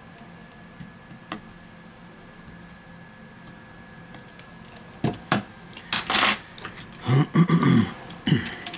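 Small tools and metal phone parts being handled on a silicone repair mat: one sharp click about a second in, then, from about five seconds in, a busy run of clicks, knocks, scrapes and rustling as the bare phone frame and the new display are picked up and moved.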